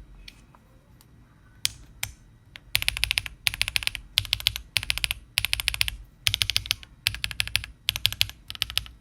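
Mechanical keyboard typing test on a Weikav Nut65 fitted with HMX Bamboo switches. A few single key clicks come first. From about three seconds in, repeated quick runs of keystrokes follow, each about half a second long, with short pauses between.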